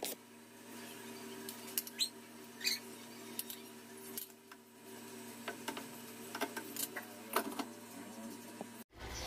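Sharp clicks and clacks of a spatula and pan lid against a steel frying pan on a gas stove, scattered irregularly over a steady low hum. The sound cuts off abruptly near the end.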